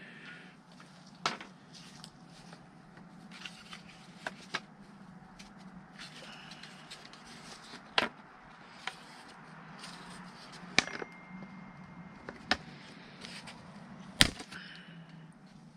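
Sharp plastic clicks and snaps at irregular intervals, roughly one every second or two, from pieces of a truck's heater box being pulled and broken off by hand; the loudest snap comes near the end. A low steady hum runs underneath.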